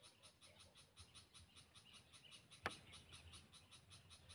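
Near silence, with a faint animal chorus pulsing evenly at about seven pulses a second and one sharp click about two and a half seconds in.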